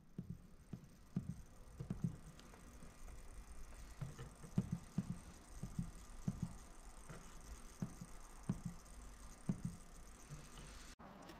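Soft, irregular taps and thumps as a finger presses the membrane buttons on a Miller Dynasty 350 TIG welder's control panel, stepping through its settings.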